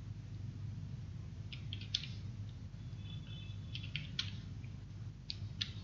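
Computer keyboard keystrokes: a few scattered taps in small clusters as digits are typed in, over a steady low hum.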